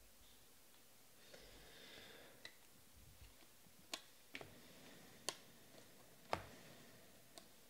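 Faint handling of a stack of football trading cards: a soft sliding rustle, then a few sharp card clicks, about one a second, as the cards are flipped through by hand.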